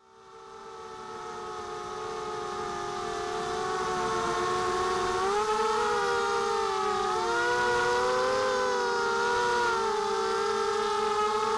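Minion 220 mini quadcopter's brushless motors and propellers whining, heard from the onboard camera. Several pitches rise and fall together as the throttle changes during low, fast flight. The sound fades in over the first few seconds.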